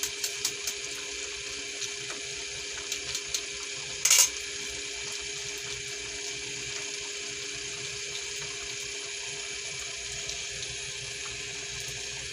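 Thick tomato-based menudo sauce simmering in a pan: a steady hiss with small pops and ticks over a faint steady hum. One short loud knock about four seconds in.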